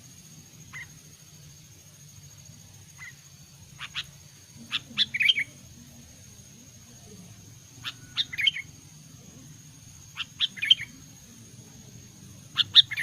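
Sooty-headed bulbul (kutilang) singing: two soft single notes, then four short phrases of several quick notes, repeated every two to three seconds.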